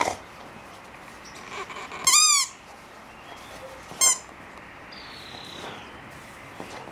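A dog's pink rubber squeaky toy squeaking as a boxer bites down on it: one longer squeak about two seconds in and a short one about two seconds later.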